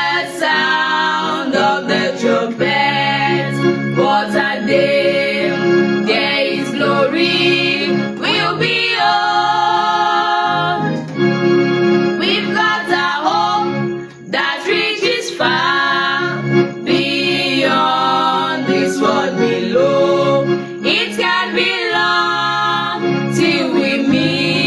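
Gospel song: singing with organ accompaniment.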